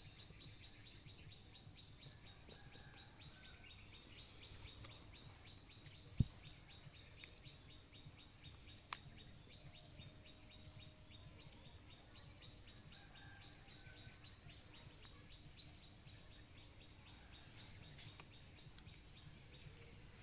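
Faint, fast chirping pulse repeating evenly at about five a second in the outdoor background, with a soft thump about six seconds in and a few sharp clicks shortly after.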